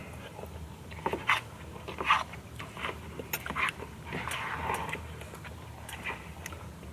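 Eating sounds from spicy fried noodles: slurping and chewing with scattered small clicks, mixed with short panting breaths.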